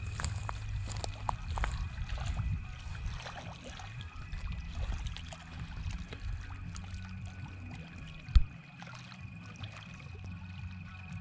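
Small waves lapping at a lakeshore, with wind buffeting the microphone for the first few seconds and a faint steady high-pitched tone. A single sharp thump comes about eight seconds in.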